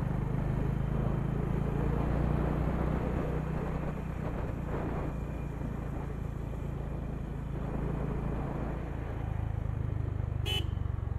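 Honda H'ness CB350's single-cylinder engine running steadily under way. A short horn beep sounds near the end.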